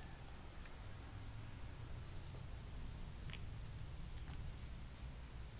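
Faint steady room hum with a few light, scattered clicks and taps as plastic action figures are handled and set on their base.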